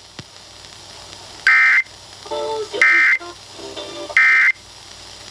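Emergency Alert System end-of-message code from a NOAA Weather Radio broadcast: three short bursts of buzzy SAME data tones, about a second and a half apart, marking the end of the tornado warning message.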